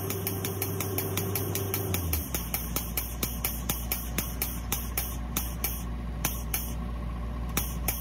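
Pneumatic air tool working on the bolts of a Komatsu 130 excavator's steel track shoes, making sharp clicks at about four a second that thin out to a few scattered clicks after about five seconds. A steady engine hum runs underneath and changes pitch about two seconds in.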